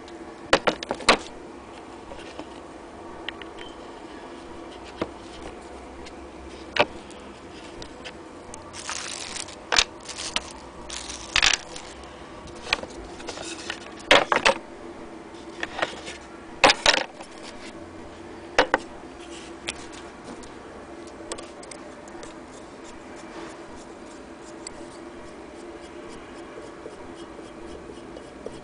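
Irregular clicks, knocks and metallic clatter of a Willcox & Gibbs hand-crank sewing machine being handled and tipped on its wooden base, with no steady cranking rhythm. The knocks come thickest in the middle of the stretch and are sparse at the start and end.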